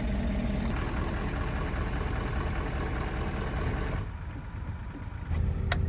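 Engine idling steadily; it drops in level about four seconds in and comes back stronger with a steady low hum just before the end, where a few sharp clicks are heard.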